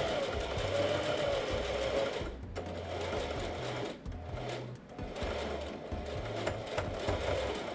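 Singer 44S Heavy Duty sewing machine stitching through thick denim, its motor speeding up and slowing under the foot pedal, with brief pauses a few times.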